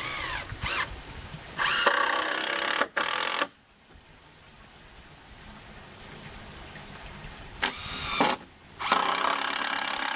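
Cordless driver driving screws into a wooden frame, its motor running in short stop-start spurts. There is one quick spurt at the very start, a longer run from about a second and a half to three and a half seconds in, then two more runs near the end.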